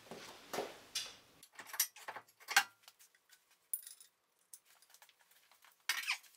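Footsteps, then light metallic clinks and rattles as a hitch ball mount and its pin are pulled out of a pickup's receiver hitch, with a louder short clank just before the end as it is set down.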